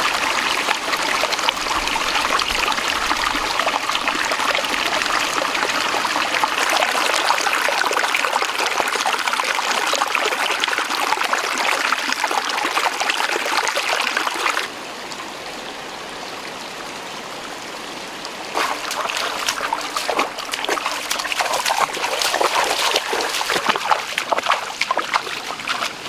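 Shallow rocky stream running over stones: a steady rush of water that drops suddenly to a quieter flow about halfway through. Later it turns into louder, uneven splashing and trickling.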